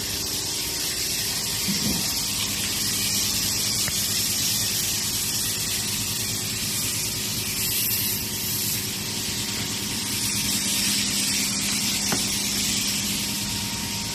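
High-pressure car wash water jet spraying in a steady hiss, over the steady low hum of its pump.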